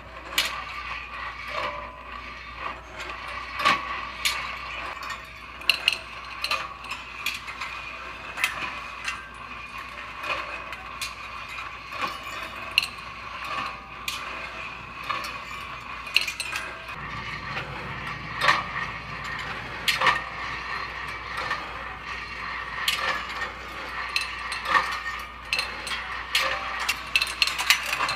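Kinetic rolling ball sculpture running: its chain-and-sprocket drive turns with a steady mechanical sound while quarter-inch chrome steel balls click irregularly as they roll along the stainless steel wire tracks.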